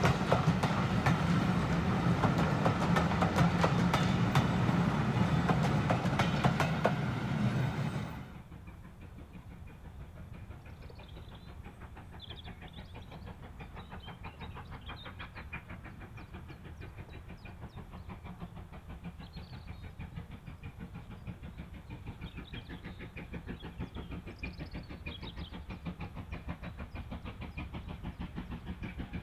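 A train passes close by with its wheels clattering over the rail joints. About eight seconds in, the sound cuts off abruptly to a much quieter, distant rumble with faint high chirps.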